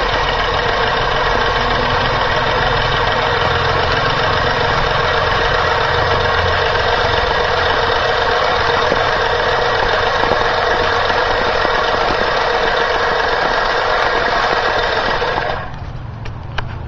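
Manual push reel lawn mower cutting grass, its spinning blade reel making a steady whirring clatter. The whir stops about a second before the end, leaving a few light clicks.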